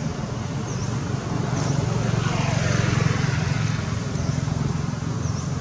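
A passing vehicle's engine drone that swells toward the middle and then eases off, its pitch falling as it goes by.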